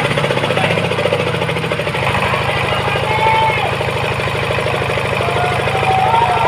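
A heavy engine running steadily with a fast, rattling pulse; its note changes about two seconds in.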